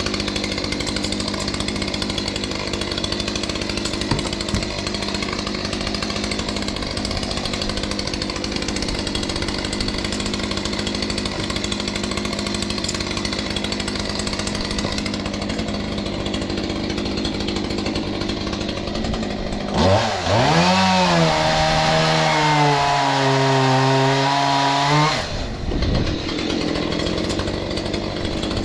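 Stihl MS181 two-stroke chainsaw running steadily. About twenty seconds in it revs sharply up to high speed, holds there for about five seconds, then drops back.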